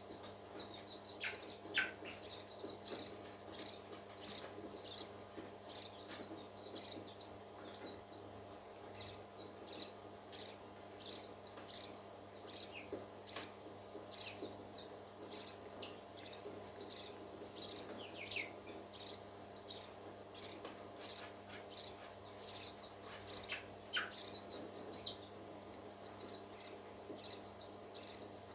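Parrots chirping: a steady stream of short, high chirps, many falling in pitch, with a few louder downward calls, over a faint steady hum.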